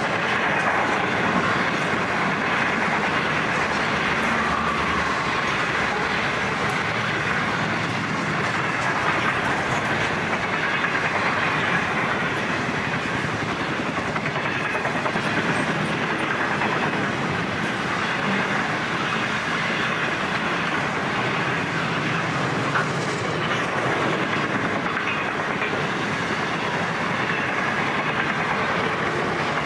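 Container wagons of a long freight train rolling past, steel wheels running on the rails with a clickety-clack. The noise stays steady throughout.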